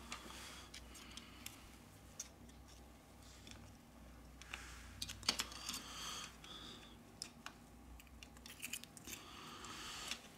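Faint handling noises as a Redmi Note 8's motherboard is fitted into its frame: scattered small clicks and scrapes of the board and metal shields against the frame, with the rustle of cotton gloves. The sharpest click comes about five seconds in.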